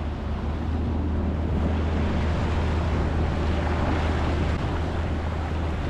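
Sea-Doo personal watercraft running at low speed: a steady low engine hum under the wash of water and wind on the microphone.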